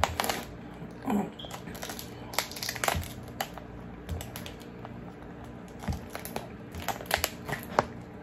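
Cooked Alaskan king crab shell being pulled and cracked apart by hand: irregular cracks and crunchy snaps. They bunch together about three seconds in and again around seven seconds.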